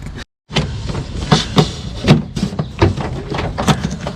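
A run of irregular knocks and clunks, about a dozen in four seconds, after a brief dead-silent gap near the start.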